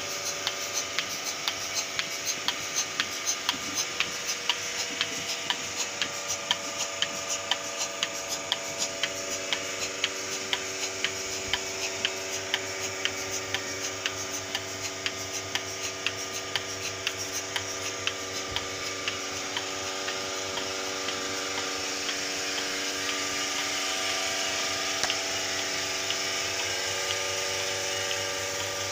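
Single-bucket milking machine running on a fixed vacuum pipeline: the pulsator ticks evenly, about two to three times a second, over the steady hum of the vacuum pump motor. The ticks grow fainter after about twenty seconds while the hum gets louder.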